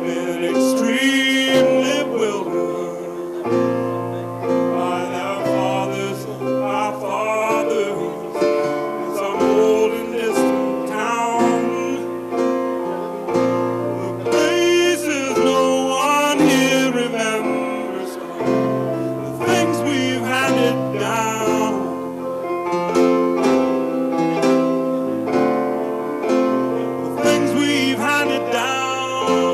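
A singer performing a slow song with instrumental accompaniment; the sung phrases come and go over sustained chords.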